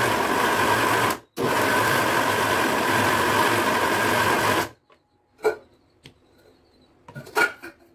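Mixer grinder blending cake batter in its steel jar, run in two pulses: it stops briefly just after a second in, restarts, and cuts off a little past halfway. A few light knocks and clicks follow.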